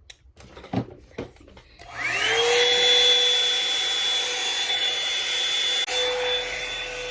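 Revlon One-Step hair dryer brush: after a few light handling knocks its motor spins up about two seconds in and runs with a steady whine over a rush of blown air, then is switched off near the end, the whine dropping as it winds down.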